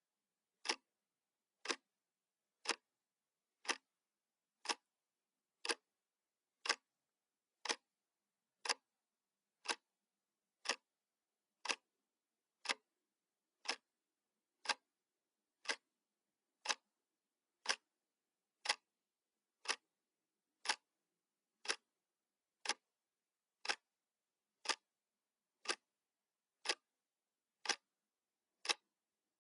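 Clock ticking sound effect: one sharp tick each second, evenly paced, counting off the seconds of a countdown timer.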